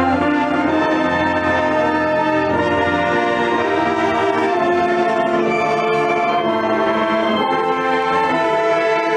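Marching band brass section playing held chords together. The chord changes a few times.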